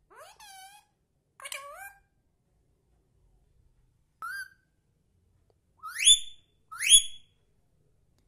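Indian ringneck parrot calling. Two softer wavering calls come in the first two seconds and a short chirp about four seconds in, then two loud rising squawks about a second apart near the end.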